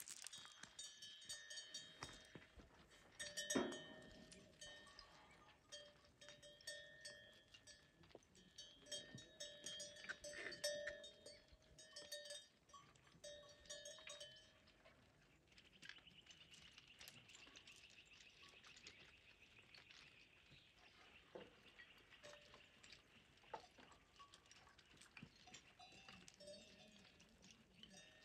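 Faint bells on a herd of sheep and goats clinking and ringing on and off as the animals walk over stony ground, with scattered clicks of hooves and stones and one louder knock about three and a half seconds in. The bells mostly die away about halfway through, leaving a faint steady high-pitched drone and occasional clicks.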